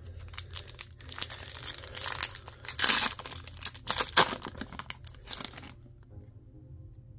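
Foil wrapper of a hockey card pack crinkling and tearing as it is pulled open by hand, loudest about three and four seconds in. It stops about six seconds in.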